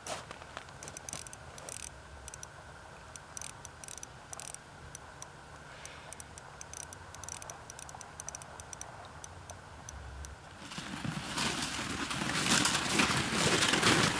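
Faint scattered ticking, then from about ten seconds in a loud, rising crunching and scraping as someone walks over crusted snow on lake ice dragging a loaded plastic ice-fishing sled.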